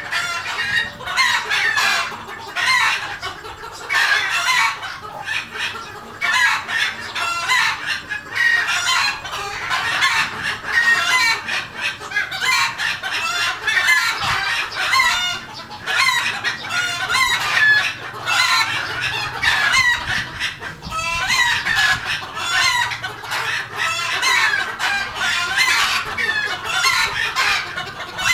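A flock of red junglefowl clucking and calling without pause, many birds overlapping, with roosters crowing among them.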